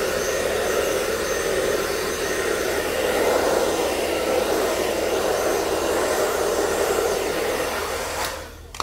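Handheld hair dryer blowing steadily, then switched off near the end.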